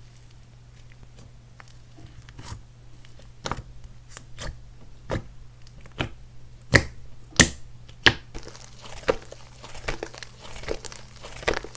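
Clay-mixed slime being squeezed and stretched by hand, giving sharp crackling pops and clicks. They start sparse a few seconds in and come faster and louder toward the end, over a faint low hum.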